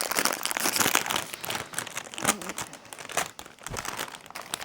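Plastic chip packet crinkling as it is handled and pulled open, a dense crackle that thins out over the last couple of seconds.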